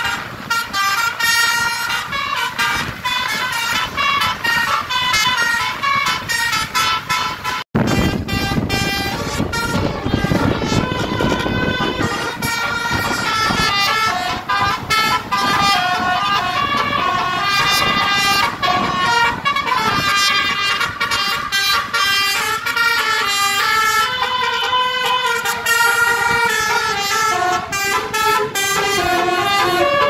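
Basuri 'telolet' multi-tone bus horn playing a continuous melody of stepping notes, over bus engine and road noise. The sound cuts out for an instant about eight seconds in.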